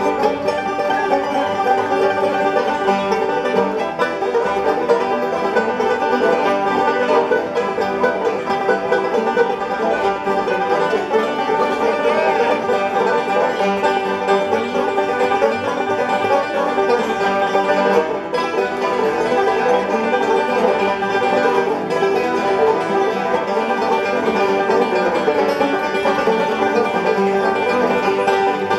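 A large ensemble of banjos, more than a dozen, picking a tune together: dense, steady bluegrass-style banjo music.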